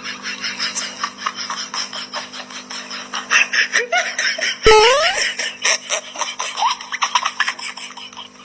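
Thin plastic bag crinkling and rustling in quick, irregular crackles as a cat shifts about under it. About halfway through, a sudden loud sound glides upward in pitch.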